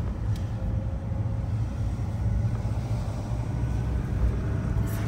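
Steady low drone of a car's engine and tyres heard from inside the moving vehicle's cabin.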